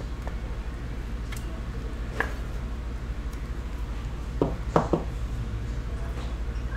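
A clear hard plastic trading-card holder handled, giving a few light clicks and then three sharp plastic clicks close together near the end, over a steady low hum.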